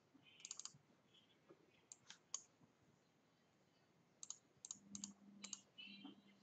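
Faint computer mouse clicks: a few single clicks early, two or three about two seconds in, then a quicker run of several between about four and five and a half seconds in.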